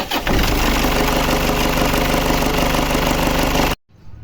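Toyota D-4D diesel engine running just after starting, with a knocking sound from a faulty timing-belt tensioner adjuster, which is leaking oil and noisy. The sound cuts off suddenly near the end.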